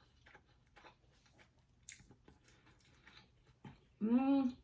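Close-up eating sounds of a person chewing a mouthful of buttered rice: soft, scattered chewing and lip-smacking clicks, with one sharper click about two seconds in. Near the end comes a short closed-mouth hum whose pitch rises and falls.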